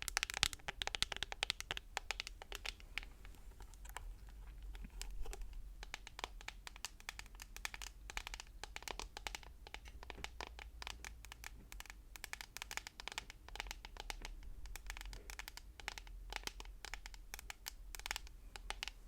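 ASMR tapping on objects: rapid, irregular runs of light taps with some scratching between them.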